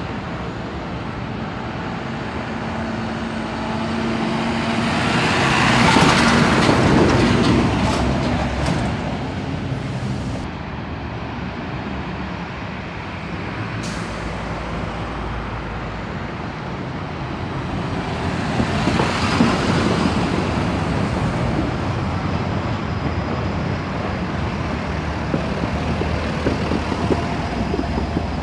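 City buses driving past, diesel engines running with tyre noise on the road. The sound swells as one bus passes about six seconds in and again around twenty seconds in.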